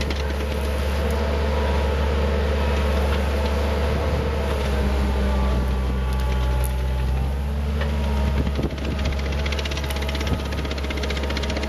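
ASV Posi-Track compact track loader's diesel engine running steadily under load, its note shifting partway through as the machine works its forks to lift a burlap-balled evergreen tree.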